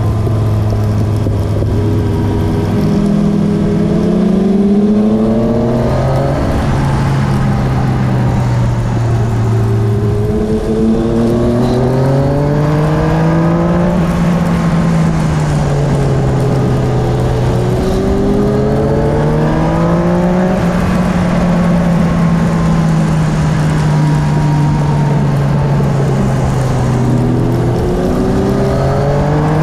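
Motorcycle engine running on the move, its pitch climbing as the bike accelerates and dropping at each gear change, several times over, with wind rushing past.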